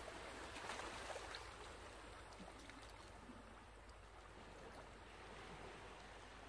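Near silence: faint steady hiss, with a few faint snips of fabric scissors cutting through denim about a second in.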